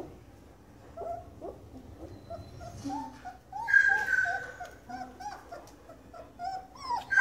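Young German Shorthaired Pointer puppies whimpering: a string of short, soft whines, with a louder, high-pitched cry about three and a half seconds in and another at the very end.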